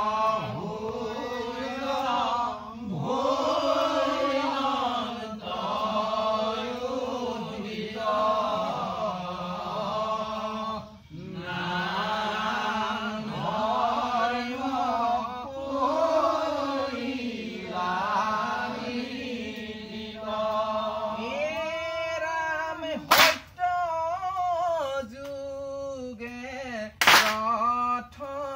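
Men chanting Assamese devotional naam (Naam Prasang) in a slow, rising and falling melody over a steady low held note. Two sharp hand claps come near the end.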